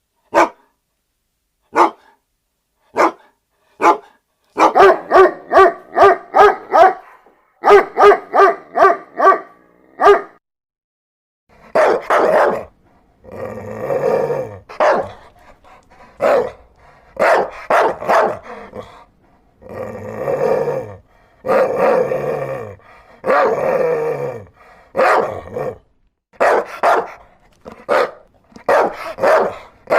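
Dog barking. First come single sharp barks a second or so apart, then quick runs of barks at about four a second. From about twelve seconds in a different recording follows, with longer, deeper barks over a background hiss.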